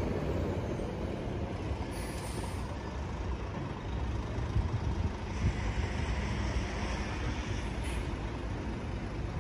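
Road traffic at a city intersection: a steady low rumble of vehicle engines, with the hiss of a passing vehicle swelling and fading in the second half.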